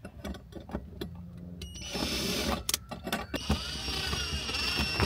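Cordless drill driving a screw into the van wall to fix a metal bracket. It runs in two bursts, a short one about two seconds in and a longer one of about a second and a half, with a steady motor whine. A few light clicks of handling come before them.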